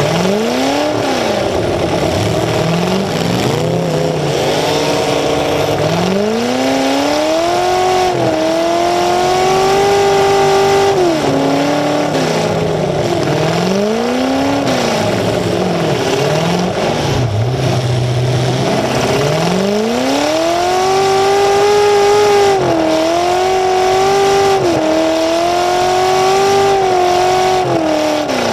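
A demolition derby car's engine, running through open exhaust stacks that come straight up through the hood, revving up and down again and again. It holds high revs for a few seconds at a time, then drops back before climbing again.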